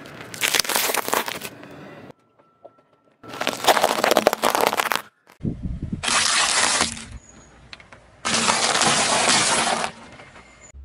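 A car tyre rolling over and crushing brittle things, a hard-candy lollipop and wafers among them. There are four separate bursts of crunching and cracking, each a second or two long, with short pauses between.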